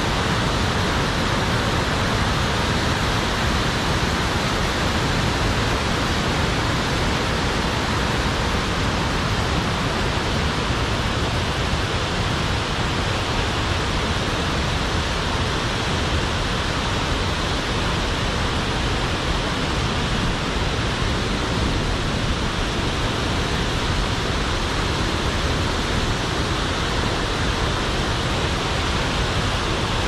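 Oshinkoshin Falls, a large waterfall, pouring steadily: an even, unbroken rush of falling water.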